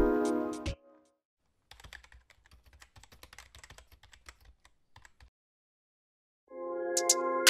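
Rapid, faint computer-keyboard typing clicks, a typing sound effect that runs for about three and a half seconds. Music stops just before it and starts again near the end.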